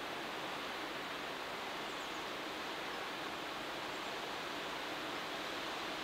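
Wind blowing through forest trees: a steady, even rustle of leaves and branches.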